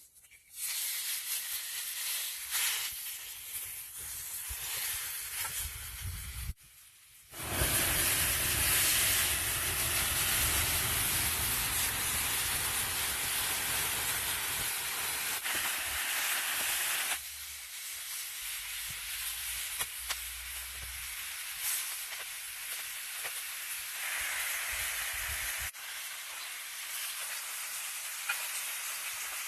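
Meat sizzling on a grill: a steady, loud hiss that cuts out briefly about seven seconds in and changes level suddenly a few more times.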